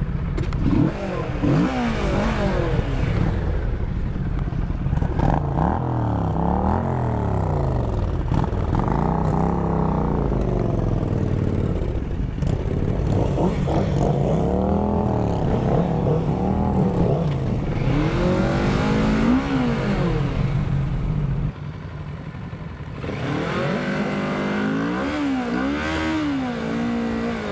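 Kawasaki Z650's parallel-twin engine running as the motorcycle pulls away and rides at low speed, its pitch rising and falling again and again with the throttle. It drops quieter a little after two-thirds of the way through, then picks up again.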